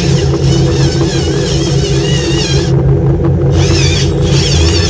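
Cordless drill running steadily under load as it bores into the car's plastic front grille, with a high, wavering whistle over the motor that drops out for a moment about three seconds in.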